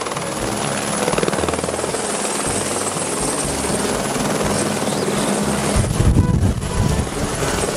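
Light helicopter hovering low: a steady rotor beat with a thin high turbine whine, swelling in the low end about six seconds in.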